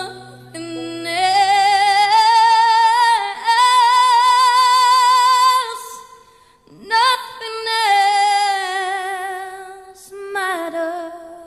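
Background music: a woman's voice holding long sung notes with vibrato, in two long phrases with a short break about six and a half seconds in.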